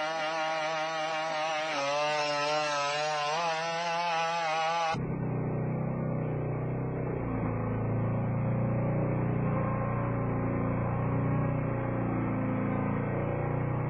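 For about five seconds, a wavering pitched tone with a warbling, synthesizer-like pitch. Then it cuts abruptly to the steady, rough buzzing drone of the BigDog quadruped robot's two-stroke engine running its hydraulic legs as it walks.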